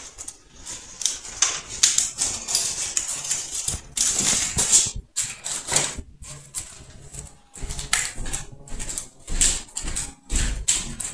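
Wood fire on a hearth crackling, with dense irregular sharp snaps and pops.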